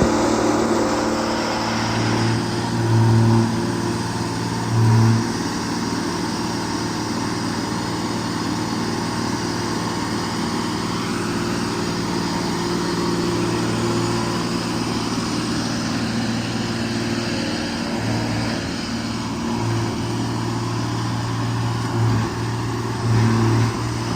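125B excavator's engine running steadily, with brief louder surges about three and five seconds in and twice near the end.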